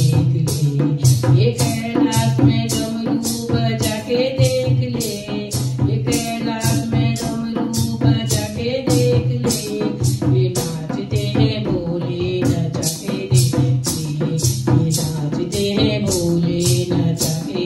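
Hindu devotional bhajan: a woman's voice singing over a dholak drum, with a steady rattling percussion beat about two to three strokes a second.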